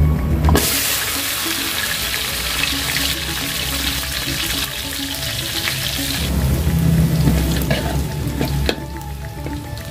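Sliced shallots, chilies and garlic hit hot oil in a metal wok about half a second in and fry with a loud sizzle that thins out after about six seconds. Near the end a metal spatula stirs and clicks against the wok.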